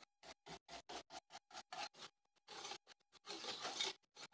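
Powdered sugar and melted ghee being beaten by hand in a bowl: faint, quick scraping strokes of a utensil against the bowl, about five a second, giving way to a few longer scrapes in the second half.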